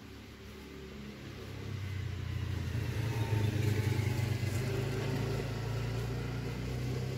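A motor vehicle's engine running steadily, growing louder over the first three seconds and then holding.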